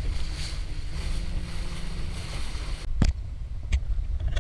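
A boat under way at sea: a steady low rumble with wind buffeting the microphone and the hiss of water. About three seconds in the hiss drops away abruptly and a single sharp knock follows.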